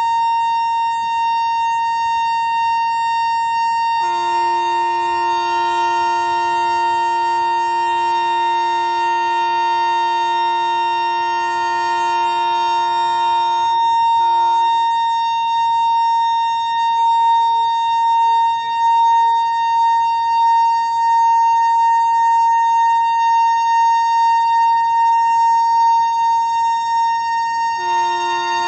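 Train locomotive air horn held in one long continuous blast, a celebratory departure honk. A single steady note sounds throughout; a second, lower note joins about four seconds in, drops out about ten seconds later, and comes back near the end.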